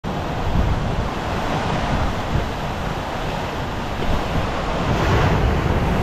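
Ocean surf surging and breaking against dark volcanic rock at the foot of a cliff, with wind buffeting the microphone. The surge grows a little louder near the end as a wave comes in.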